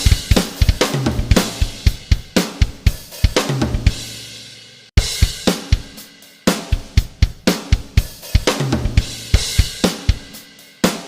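Background music led by a drum kit: a steady beat of kick, snare and hi-hat with cymbals, with a sudden break about five seconds in.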